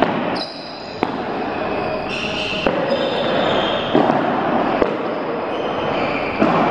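A ball rally of sharp hits and bounces, about one every second or so, each echoing in a large hall, over a steady background hiss.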